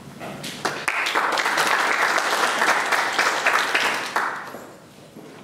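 Audience applauding, rising in the first second and dying away about four seconds in.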